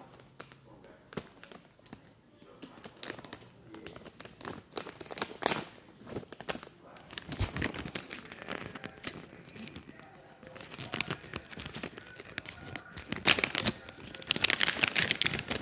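Plastic beef jerky bag crinkling and rustling as it is handled, in irregular crackles that are busiest near the end.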